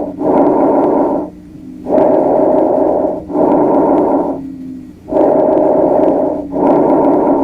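Lung sounds heard through a stethoscope: a rushing breath noise, in then out, repeating about every three seconds.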